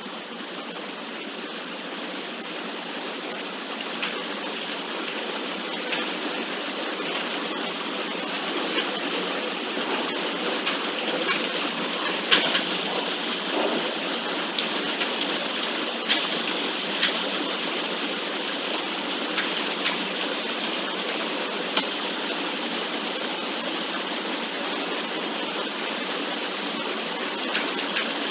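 Gearbox running with a steady grinding rasp, dotted with irregular sharp clicks, slowly getting louder over the first ten seconds.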